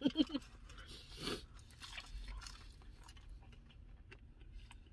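Close mouth sounds of someone chewing a birria taco: small wet clicks and crunches, with one louder bite about a second in.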